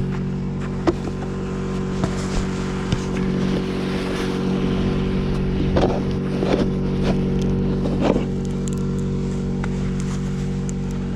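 Car engine idling steadily while warming up, with a few short scrapes and knocks over it, most of them in the second half.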